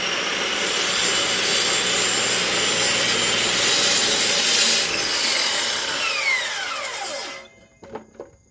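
Circular saw blade of a firewood cutting machine sawing through a log, loud and rasping. From about five seconds in, the blade's whine falls in pitch as it winds down, and the sound stops about seven and a half seconds in.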